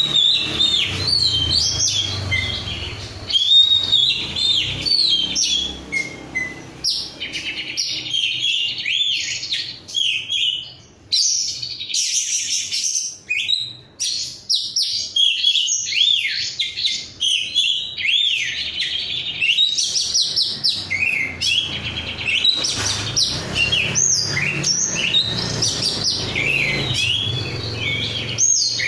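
Oriental magpie-robin (kacer) singing a long, varied song of quick whistles and chirps that runs on without real pause.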